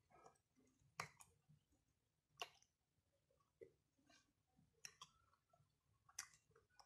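Faint mouth sounds of a person chewing rice eaten by hand: soft wet clicks and smacks, with four sharper clicks spread through.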